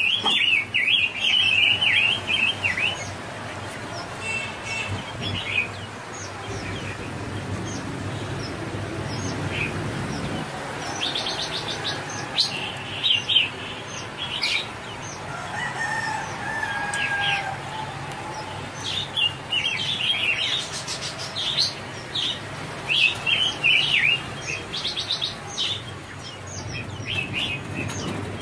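Small birds chirping and calling repeatedly, in short high chirps and warbles, over a steady outdoor background.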